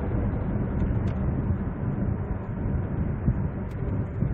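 Steady road and engine noise inside the cabin of a 2008 SsangYong Chairman 5000cc V8 sedan at highway speed, coasting with the accelerator released.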